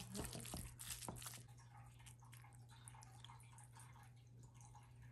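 Faint wet squelching of minced pork being stirred with a spoon in a glass bowl as ginger-and-scallion water is worked in. A few soft clicks in the first second or so, then near silence.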